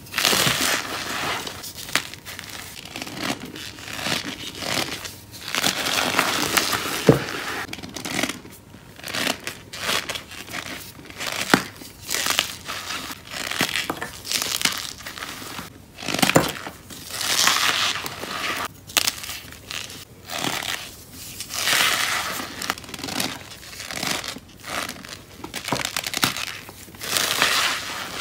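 Cornstarch-coated blocks of gym chalk squeezed and crumbled by hand: repeated swells of crunching every second or two, with a few sharp snaps as pieces break.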